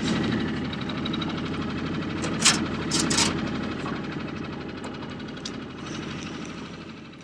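Boat motor running steadily, with a few brief sharp noises about two and a half and three seconds in; the sound fades out near the end.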